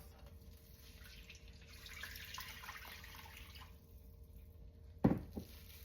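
Chicken broth being poured into a pan, a soft trickle and splash of liquid for about three seconds. A short knock follows near the end.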